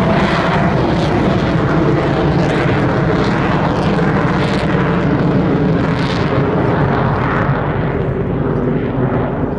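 Avro Vulcan bomber's four Rolls-Royce Olympus turbojets running at power as the aircraft flies away. The loud, steady jet noise slowly fades over the last few seconds.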